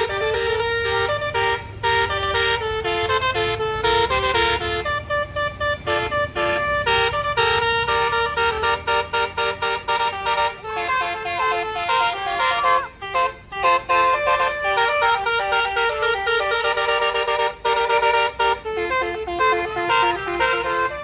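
Tour bus's 'Basuri' telolet musical air horn playing a tune of many short stepped notes, with a low engine rumble underneath.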